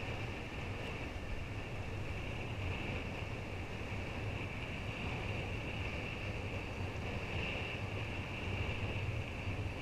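Steady wind noise buffeting an action camera's microphone while kitesurfing at speed, mixed with the hiss of the board running over the water.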